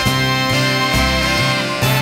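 Upbeat instrumental background music with a steady bass line; no other sound stands out.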